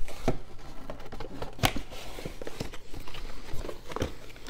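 Cardboard model-kit box and its inner sleeve being handled and closed: light taps and rustles of card, with one sharp click a little under two seconds in.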